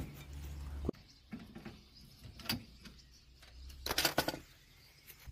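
Scattered metallic clicks and clinks from a disc-brake caliper being handled and its bolts fitted back by hand, with a cluster of clinks about four seconds in. A low hum in the first second stops abruptly.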